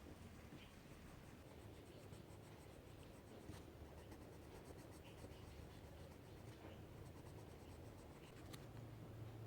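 Near silence: faint room tone with a few light scratches and ticks, the clearest about three and a half seconds in and again near the end.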